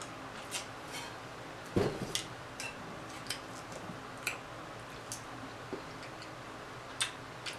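Quiet eating and drinking sounds close to the microphone: a sip, a fork taking a bite, and chewing. They come as scattered small clicks and mouth noises, with one soft thump about two seconds in.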